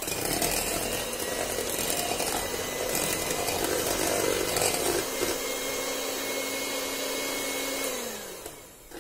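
Electric hand mixer running steadily, its beaters whisking chilled milk and whipping-cream powder in a stainless steel bowl. Near the end the motor is switched off and winds down, its pitch falling.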